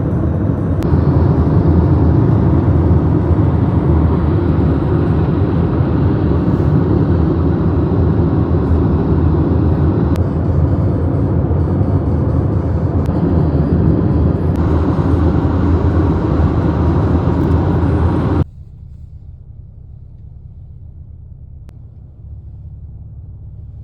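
Steady road and engine rumble heard inside a moving car. About 18 seconds in it cuts off abruptly to a much quieter low hum.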